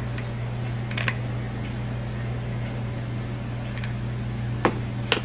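Steady low hum of room or equipment noise, with a few soft clicks: one about a second in and two near the end.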